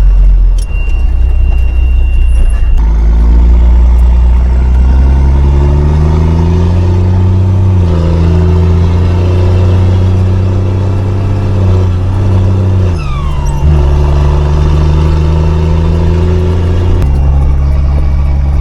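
A 5-ton military truck's turbocharged diesel engine pulling under way. The engine note rises for a few seconds, then holds steady. It dips briefly about two-thirds through, with a short falling whistle, then runs steady again.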